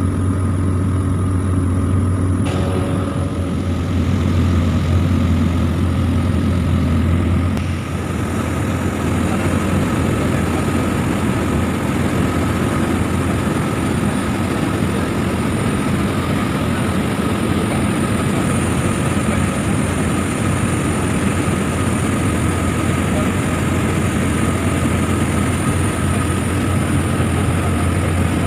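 Cabin noise of a small single-engine turboprop plane in cruise: a loud, steady drone of engine and propeller with a constant high whine above it, heard from inside the passenger cabin.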